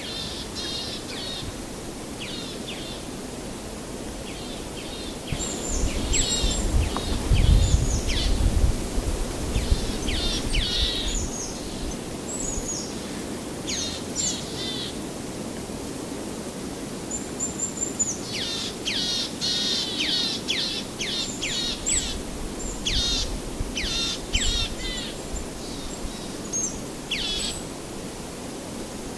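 Birds chirping and singing in bursts of short, quick high notes over a steady outdoor hiss, with a low rumble swelling a few seconds in and again later.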